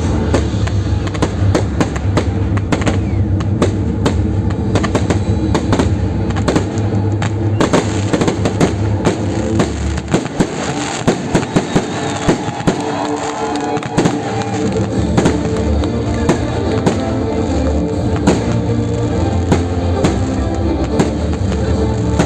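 Fireworks salute: a rapid, continuous string of cracks and bangs from bursting shells, densest about halfway through, over loud music with a steady bass.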